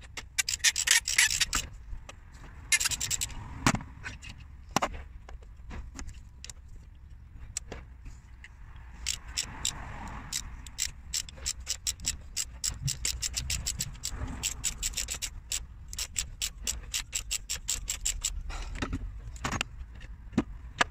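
Socket ratchet clicking as an alternator mounting bolt is undone, with some scraping of the tool on the bolt. A few short runs of clicks come in the first three seconds, then a long, even run of about four to five clicks a second through the second half.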